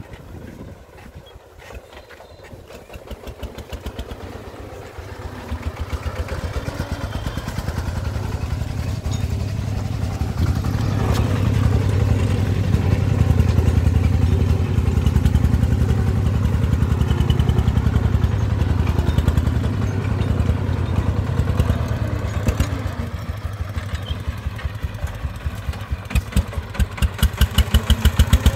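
Single-cylinder diesel engine of a loaded công nông farm truck chugging under load, with rapid, even firing pulses. It grows louder over the first ten seconds or so and stays strong as the truck works through soft soil.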